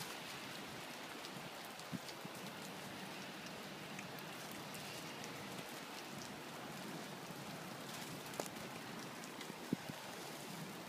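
Light icy snow pattering steadily on dry leaves and grass, a fine even hiss like light rain, with a few faint scattered ticks.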